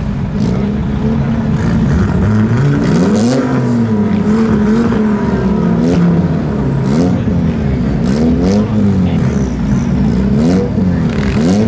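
Several demolition-derby compact cars' engines revving hard, their pitches rising and falling and overlapping, with sharp bangs of cars hitting each other every second or two.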